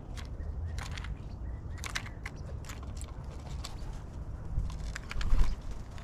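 Black-billed magpies pecking at peanuts on a wooden platform feeder: irregular sharp taps and clicks of bill on shells and wood, over a steady low rumble. The loudest knocks come about five seconds in.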